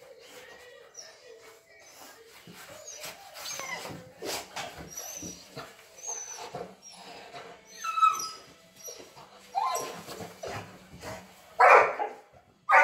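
A Labrador whining and whimpering in high, wavering squeals of excitement as it greets its owner, breaking into a few loud barks near the end.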